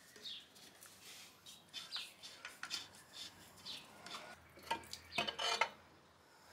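Metal clinks and scrapes as a screwdriver works the screws of a motorcycle's engine side cover and the cover is worked loose, ending in a louder run of ringing metallic clanks near the end as the cover comes free.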